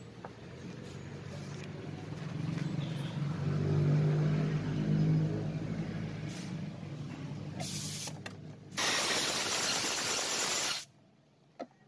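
A low droning hum swells and fades over the first half. Near the end comes a short hiss, then a loud, steady pressurised hiss lasting about two seconds that cuts off sharply.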